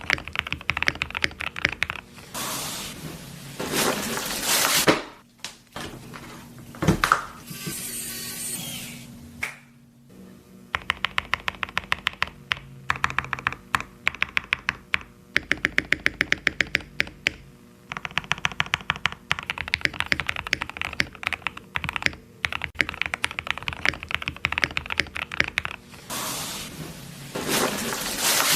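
Typing on a mechanical keyboard fitted with PBT Cherry-profile keycaps: long runs of rapid key clacks, broken by a few stretches of hissing noise.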